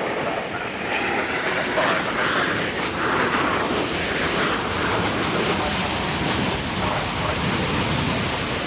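Fixed-wing aircraft engine noise, a steady loud rushing that grows a little louder about a second in.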